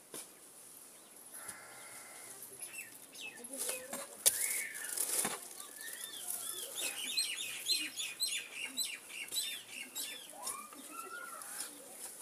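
An iron digging bar being driven into hard ground to dig a post hole, giving scattered knocks and scrapes with one sharp strike about four seconds in. Birds chirp over it, many quick chirps in the second half.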